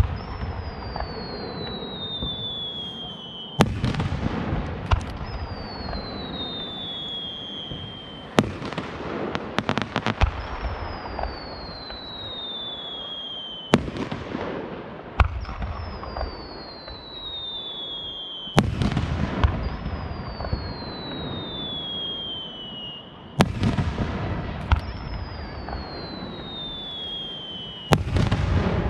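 Aerial firework shells bursting about every five seconds, each sharp bang followed by a rumbling echo and a thin high whistle that falls in pitch over two or three seconds. Smaller pops fall between the big bursts, with a stretch of rapid crackling about a third of the way in.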